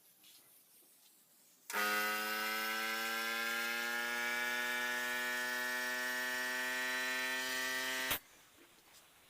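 Small electric power-tool motor switched on about two seconds in, running at a steady high whine for about six seconds with its pitch creeping up slightly as it comes up to speed, then switched off abruptly.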